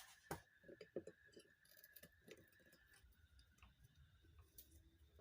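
Faint, irregular light clicks and taps of ceiling-fan metal parts being handled during disassembly, mostly in the first half; otherwise near silence.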